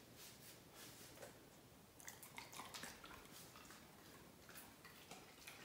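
Near silence, with a few faint, soft clicks from about two seconds in: a dog chewing a small treat.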